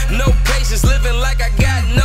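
Hip-hop track with a rapped vocal over a deep, steady bass and a kick drum hitting about twice a second.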